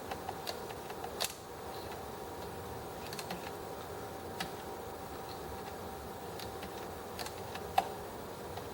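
Scattered small metallic clicks and taps of a screwdriver and sewing-machine parts being worked as a screw is snugged down, the sharpest click near the end, over a faint steady hum.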